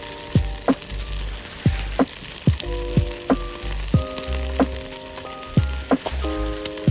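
Background music with held chords, a low bass and short drum-like hits that drop in pitch, over a continuous crackling sizzle.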